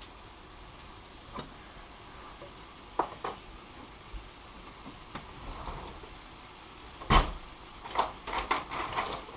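Kitchen utensils clinking and knocking over a faint steady hiss: a few separate clicks, one sharp knock about seven seconds in, then a quick run of clatter near the end.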